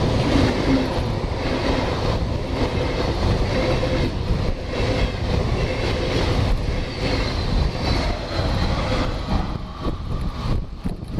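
Passenger train running past close by on the adjacent track: a steady rumble of wheels on rails with a faint hum, dropping off a little near the end as the train pulls away.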